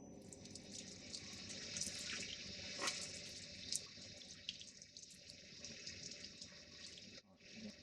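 Faint tap water running over the dismantled parts of a coffee machine's milk carafe lid as they are washed under warm water, with a few short clicks.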